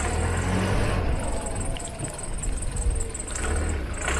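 Nissan Pathfinder SUV engine running at low revs, a steady low hum with slight rises in pitch as it gets ready to pull away.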